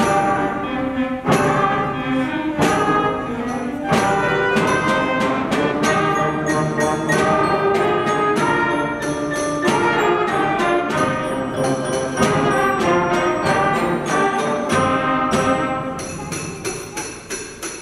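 A school concert band playing a winter sleigh-ride arrangement of folk tunes: brass and woodwinds over a steady rhythm, with jingling sleigh bells. The music eases off a little near the end.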